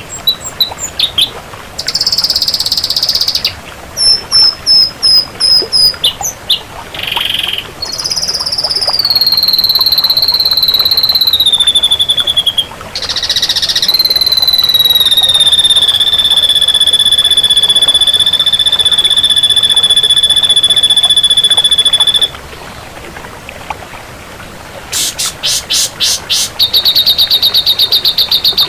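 Ashy drongo singing a varied string of sharp whistled notes and short phrases, then one long whistle held for about eight seconds with a slight fall in pitch, ending in rapid buzzy trills.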